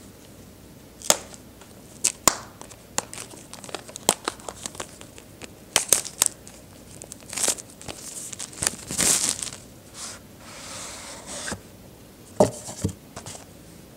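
Cardboard retail box being opened by hand: the board snapping and sliding, and the clear plastic wrap on the inner tray crinkling in a run of sharp crackles. A couple of light knocks come near the end.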